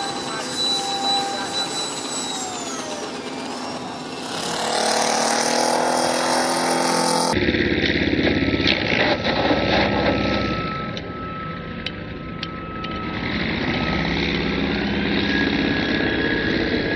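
Radio-controlled model jet's high whine, falling in pitch as it flies past. After a cut about seven seconds in, a radio-controlled F4U Corsair model's propeller motor running with a steady whine as the plane moves along and low over the runway.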